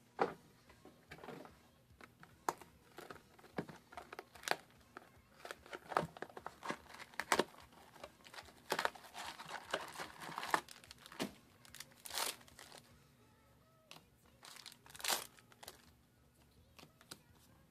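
Foil trading-card booster packs crinkling as they are handled and torn open by hand: a run of irregular crackles and short rips.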